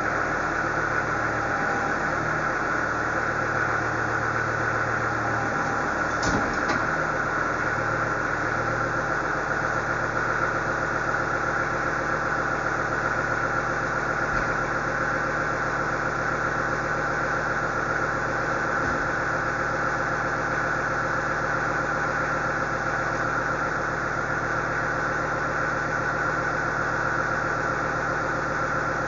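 Engine of a loader running steadily as it works the bucket, with a steady whine over it and one short knock about six seconds in.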